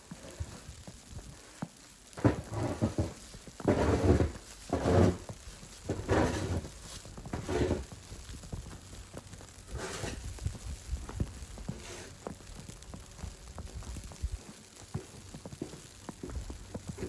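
Footsteps crunching in snow, about one step a second for several seconds, then fainter, over a steady hiss.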